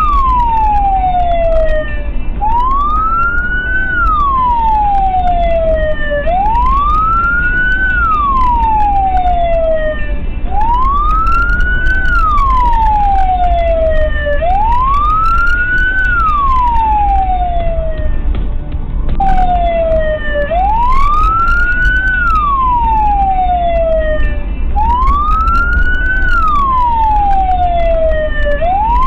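Emergency-vehicle siren sounding a slow wail. It rises for about a second and a half, falls for about two seconds, and repeats roughly every four seconds over a steady low rumble.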